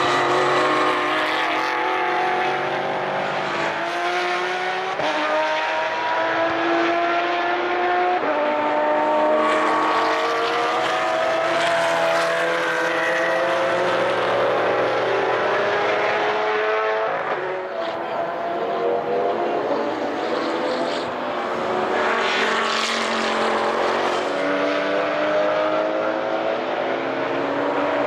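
Race car engines accelerating out of a corner one after another, their pitch climbing through each gear and dropping back at the upshifts, with several engines overlapping at times.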